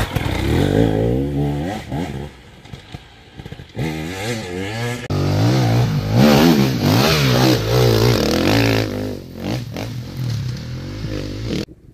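Enduro dirt-bike engines revving, the pitch climbing and dropping as the throttle is worked. One bike is loud and close at the start, the engine noise drops for a couple of seconds, and a bike comes in loud again about five seconds in. The sound then fades and cuts off abruptly near the end.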